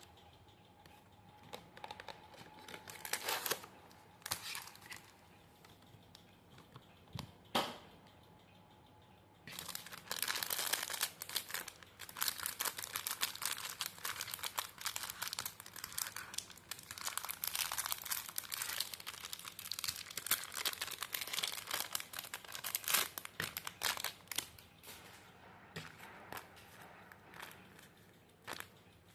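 Paper crinkling and rustling as paper craft pieces are handled and unwrapped: a few separate crackles at first, then about a third of the way in a long run of dense crinkling that thins out near the end.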